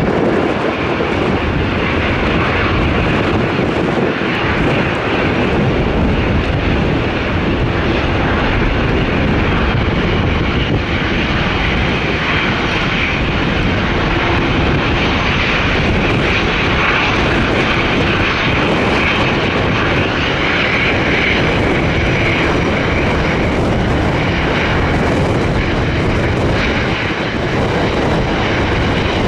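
Boeing 777-300ER's twin GE90 jet engines running with a loud, steady roar.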